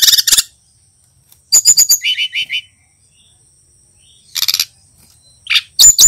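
Sikatan rimba dada coklat (brown-chested jungle flycatcher) singing in short bursts of high, sharp chirps, with a quick run of about eight notes near the two-second mark.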